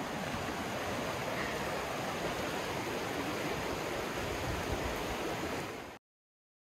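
Steady rushing of a fast-flowing, turbulent mountain river. It cuts off abruptly near the end.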